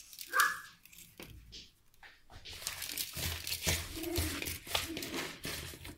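Hands handling raw smelt in a plastic bowl, with a plastic bag rustling and crinkling. There is a brief louder sound about half a second in, and dense rustling and handling noise from about two seconds on.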